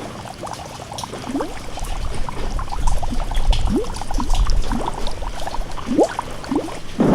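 Water pouring and splashing, with short rising bubbly plinks scattered through it; it grows louder after the first couple of seconds.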